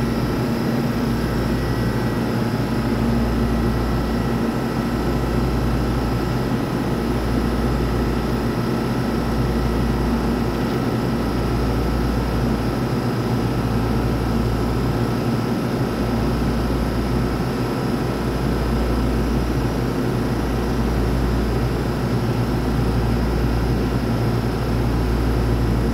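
Standing TRA EMU3000 electric trainset humming at rest: a steady hum with several held tones, over a low rumble that swells and fades about every two seconds.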